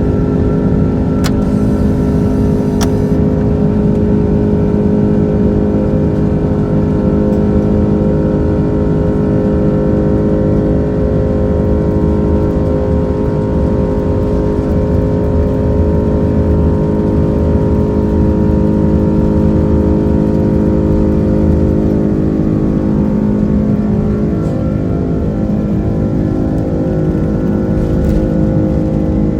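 Airbus A330-300's Rolls-Royce Trent 700 turbofan engines running steadily: a constant loud drone with several held tones over a low rumble.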